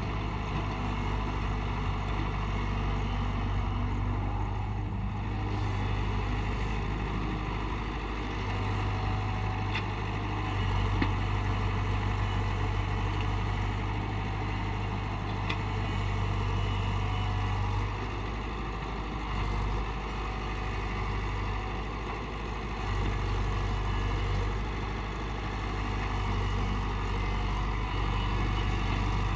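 Tata Hitachi 71 excavator's diesel engine running as the machine works, a steady low drone that swells and eases several times with the changing load.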